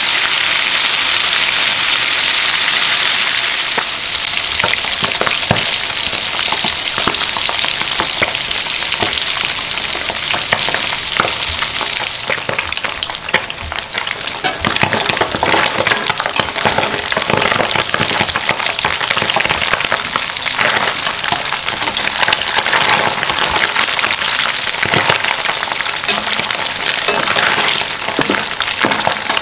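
Fresh wet anchovies frying in hot cooking oil. A dense, steady sizzle for about the first four seconds eases into a crackling sizzle full of small pops.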